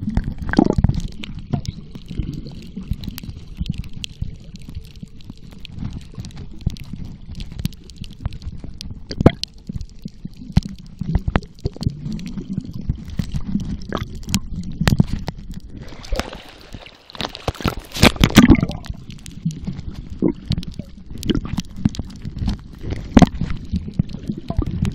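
Muffled underwater sound picked up by a camera held below the surface: a dull, deep sloshing and gurgling of water, with many scattered sharp clicks. A louder gurgling burst comes about 17 seconds in.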